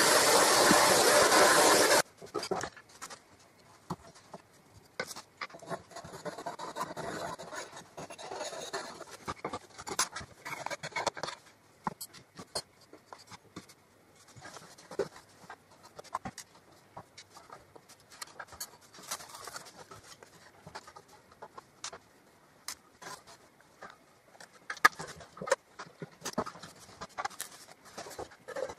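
A loud rushing hiss that cuts off suddenly about two seconds in, then scattered light taps, knocks and scraping rustles of wooden case parts being handled and set down on a wooden floor, with a few sharper knocks near the end.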